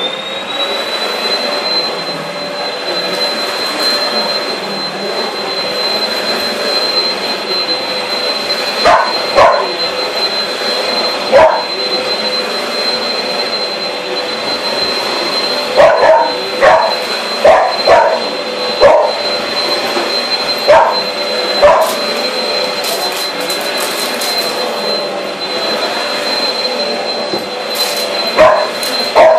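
Vacuum cleaner switched on, its motor spinning up to a steady high whine and then running. A dog barks repeatedly over it in short bursts, starting about nine seconds in.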